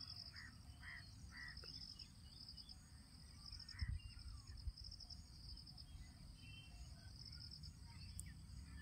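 Faint crickets trilling in short bursts about once a second, with a few scattered short chirps. A soft knock comes about four seconds in.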